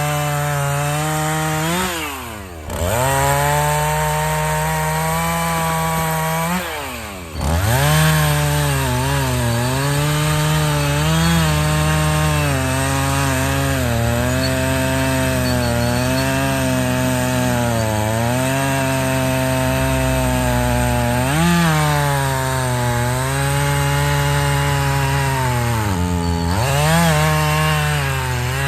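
Two-stroke chainsaw running at high revs while cutting logs, its engine note dropping sharply and climbing back about two and a half seconds in and again about seven seconds in, with smaller dips and rises as the load on the chain changes.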